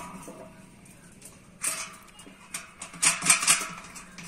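Metal clinks and rattles as the steel mounting bracket and nuts on the back of a satellite dish are handled and fitted, with one short group about a second and a half in and a quicker cluster about three seconds in.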